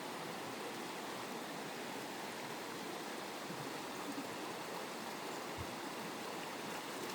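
Flowing water making a steady, even rushing sound.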